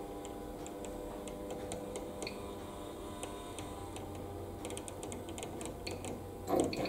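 Faint, irregular clicking from the rotary control knob of a Degussa Dental ceramic furnace as it is turned, with a cluster of clicks about five seconds in, over the furnace's steady hum. A short, louder noise comes near the end.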